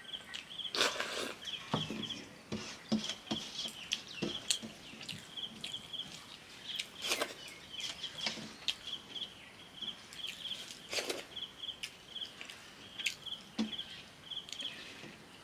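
Close eating sounds from a steel plate: a short slurp about a second in as the last soaking water of the panta bhat is drunk off the plate, then fingers picking and scraping at the bare steel, with scattered clicks, mouth smacks and a few more short slurps. A high chirp repeats steadily in the background.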